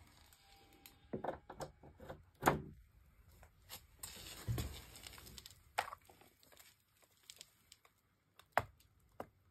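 Handling noise from a wet netbook: a scatter of sharp clicks and knocks. The loudest knock comes about two and a half seconds in, a short rustle with a dull thud comes around four and a half seconds, and single clicks follow as a finger goes for the power button.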